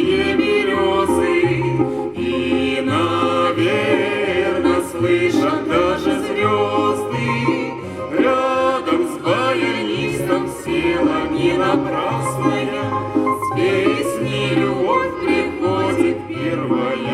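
Lively instrumental break of a Russian song led by a button accordion (bayan), over an alternating bass line and a steady beat.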